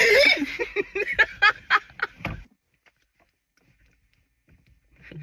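A person's voice making a quick run of short, silly nonsense noises for about two and a half seconds, then stopping.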